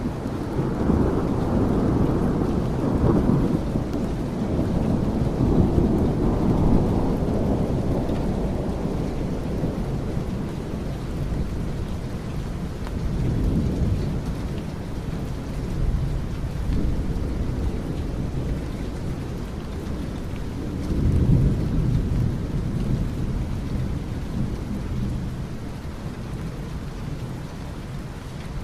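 Steady rain with rolling thunder. A long low rumble fills the first several seconds, shorter swells of thunder come midway and again later on, and the rumble fades toward the end.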